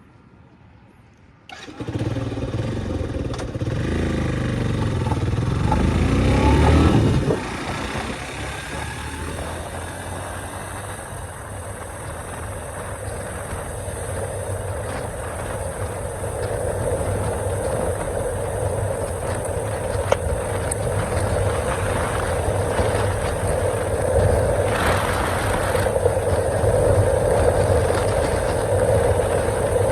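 Yamaha R15's single-cylinder four-stroke motorcycle engine starting up suddenly about a second and a half in and being revved up and down for several seconds. It then drops back at about seven seconds and runs steadily, slowly growing louder.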